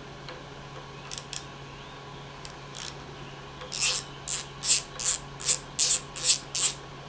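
Socket ratchet with a 10 mm socket unscrewing a grease fitting on a mini excavator: a couple of faint clicks, then, about halfway through, a run of about eight short ratchet strokes, roughly two and a half a second.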